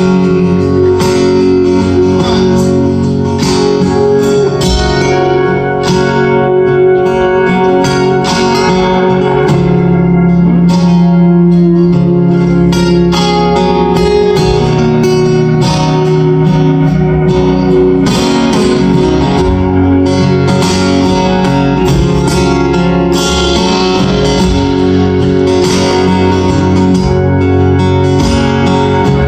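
Live band playing an instrumental passage of an acoustic-set song, led by guitars, with no vocals.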